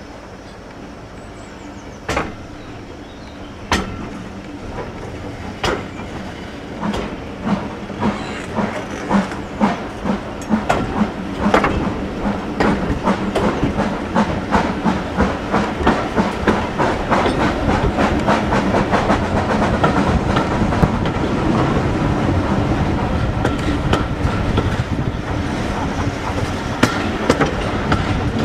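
Steam-hauled train gathering speed behind Fairburn 2-6-4 tank 42073, heard from an open carriage window: a steady running clatter with regular sharp beats that come faster and grow louder.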